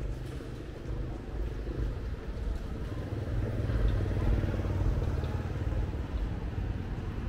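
Motorbike engine passing by, growing louder a few seconds in and then easing off, over a low rumble of street traffic.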